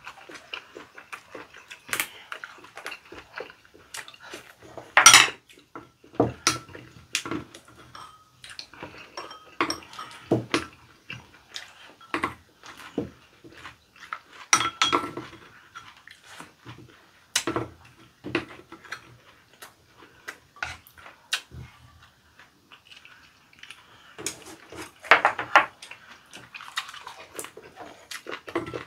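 Close-miked eating sounds of rice-and-leaf wraps: chewing and smacking, with chopsticks and spoons clicking against ceramic bowls. The loudest sounds come about five seconds in and again near 25 seconds.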